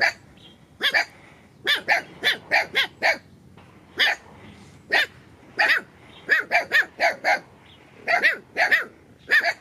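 A young puppy barking repeatedly in short, high-pitched yaps, about two dozen in quick bursts of two or three. They are warning barks at an intruder near the puppies' lair.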